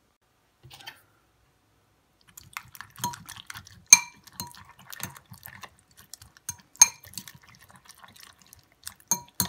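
Metal fork stirring raw eggs into ground beef in a ceramic bowl, clinking against the bowl in quick irregular taps that ring briefly. The clinking starts about two seconds in.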